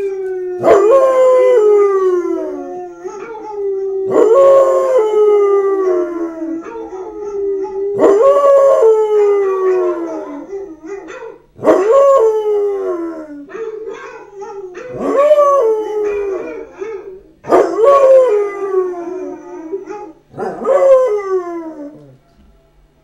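Basset hound howling over and over, about seven long howls. Each begins sharply, rises briefly, then slides down in pitch over a couple of seconds, coming every three to four seconds until it stops near the end.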